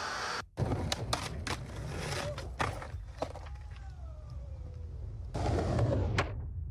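A skateboard on concrete: a run of sharp clacks and knocks of the board hitting the pavement over the first few seconds, then wheels rolling on pavement for about a second, some five seconds in.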